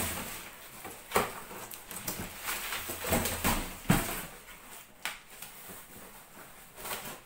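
Cardboard box being opened by hand: flaps scraping, rustling and knocking, with a few sharp knocks, the loudest about a second in and near four seconds in.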